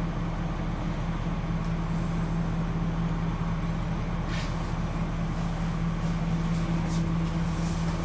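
Rear-mounted diesel engine of a 1998 Blue Bird TC2000 school bus idling steadily, heard from inside the passenger cabin as a constant low hum.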